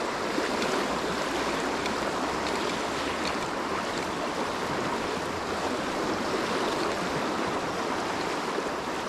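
A river running high, with the steady rush of fast water over a boulder-strewn bed.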